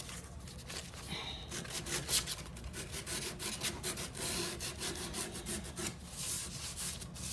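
Hand sanding: sandpaper rubbed back and forth over a laminate cabinet drawer in irregular rasping strokes, smoothing primer and CA-glue repairs.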